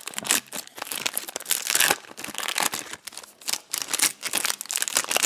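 Foil trading-card booster pack being torn open by hand at its crimped seal, the wrapper crinkling and crackling in irregular bursts.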